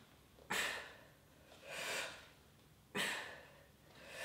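A woman breathing hard in time with side crunches: two sharp blown-out exhalations about two and a half seconds apart, each followed by a softer, slower in-breath. She breathes out on each lift and in on the way down.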